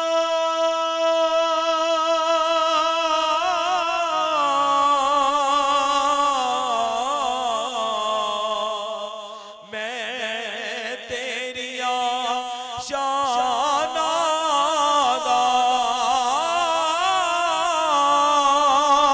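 A male voice singing a Punjabi naat over a hall microphone. It opens on a long, steady held note, then moves into a wavering, ornamented melodic line with no clear words. There is a brief break about ten seconds in before the singing picks up again.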